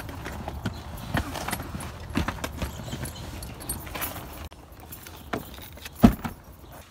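Irregular clattering and knocks of luggage being handled: suitcase wheels rolling over a concrete pavement, then suitcases being loaded into a car boot, with one loud thump near the end.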